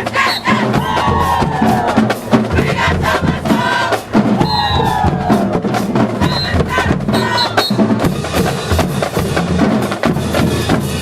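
High school marching band playing in the stands: a drumline's rapid, dense strikes with pitched melodic lines over them.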